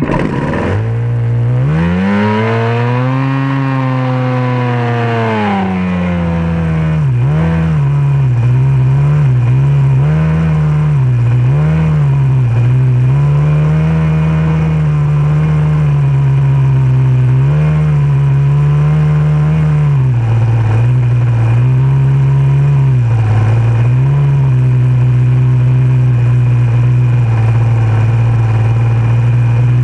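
Outboard racing motor on a small hydroplane starting up and accelerating hard, its pitch climbing for about three seconds and then easing back. It then runs at high, steady revs, with brief dips as the throttle is eased and reopened.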